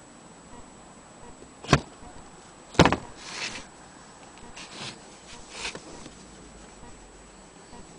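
Two sharp knocks about a second apart, the second the louder, followed by a few short, softer rustling sounds.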